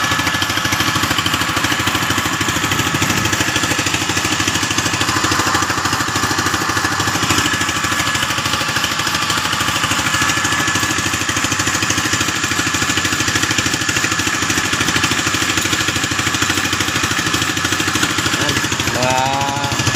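Small engine aboard an outrigger fishing boat running steadily at an even speed.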